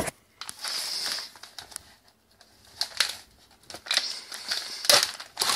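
Handling noises: a stretch of rustling and crinkling, a few sharp clicks about three seconds in, then more rustling with clicks and light knocks near the end.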